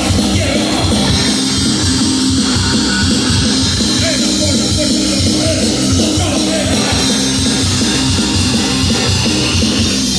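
Live punk rock band playing loud and without a break: electric guitar, bass and drum kit.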